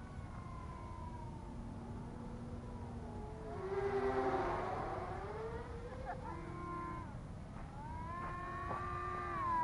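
Whine of the small electric motors of radio-controlled aircraft flying overhead, several pitches gliding slowly up and down at once. It swells louder about four seconds in as one passes close.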